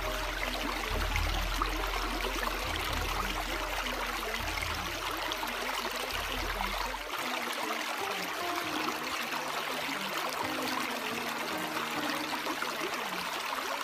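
Steady rushing water like a flowing stream, playing as the background track of a subliminal recording. A low rumble under it stops about seven seconds in.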